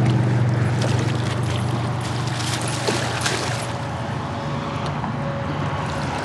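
Steady road noise from interstate traffic, with water splashing and dripping around the middle as a small northern pike thrashes at the side of a kayak.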